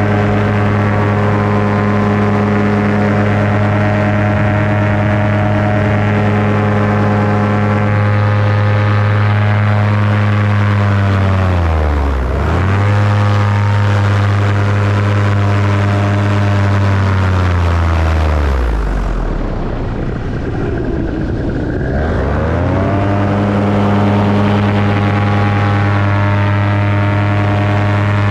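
Paramotor engine and propeller running steadily. The revs drop sharply and pick straight back up about twelve seconds in. Later they fall away for a few seconds and then climb back to full running.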